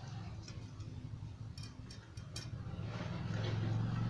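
Faint clinks and rustles of fingers mixing rice on steel plates as two people eat with their hands, over a steady low hum that grows louder about three seconds in.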